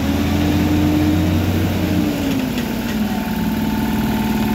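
Heavy-haul truck's diesel engine running at low speed under load. Its pitch drops between about two and three seconds in as the revs fall back toward idle.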